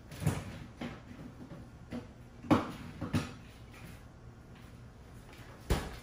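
A few scattered knocks and thuds, the loudest about two and a half seconds in, a quick pair just after it, and another near the end.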